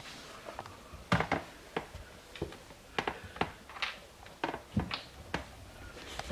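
Scattered light taps and knocks, more than a dozen at uneven intervals, the loudest about a second in.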